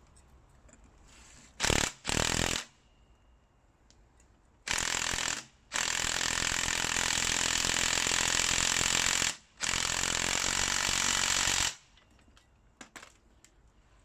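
Impact wrench hammering in five bursts, two short ones, then a longer one and two long runs, driving the spring compressor's threaded rods to compress a strut's coil spring.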